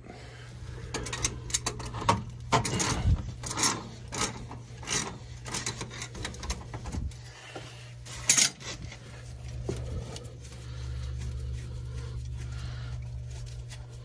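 Handling noise: irregular rubbing, scraping and light knocks as a plumber moves about and takes hold of a water meter union, with one sharp knock about eight seconds in. A steady low hum runs underneath and grows a little louder about ten seconds in.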